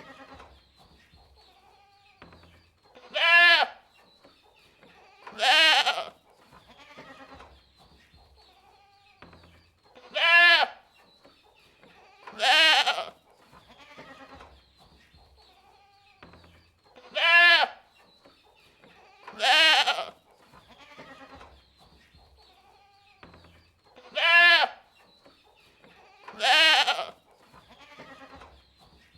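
Goats bleating: loud, wavering calls come in pairs, eight in all, with a pair about every seven seconds and fainter bleats in between.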